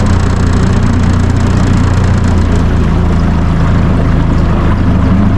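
Boat's outboard motor running steadily, a continuous low engine hum.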